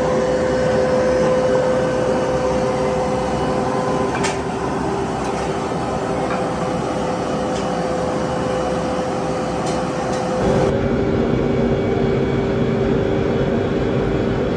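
Steady machine drone with a rushing noise and a couple of steady hum tones, from the air blower of a cupola furnace being tapped of molten iron, with a few light metallic clicks. About ten seconds in the drone shifts to a slightly lower, fuller hum.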